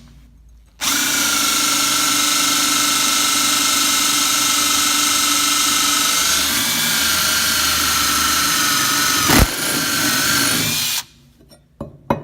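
Electric drill running steadily for about ten seconds with a carbide-tipped multi-purpose bit boring into cast or hardened metal. The drill starts about a second in and stops near the end, with one sharp click shortly before it stops.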